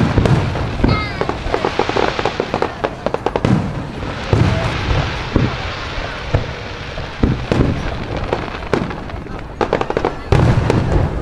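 Aerial firework shells bursting in a steady series of sharp booms with deep rumbling tails, with a run of rapid crackling about two to three seconds in.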